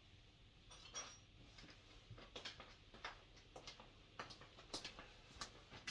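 Faint, irregular clicks and light metallic clinks of hand tools and small metal parts being handled while a diesel heater is taken apart.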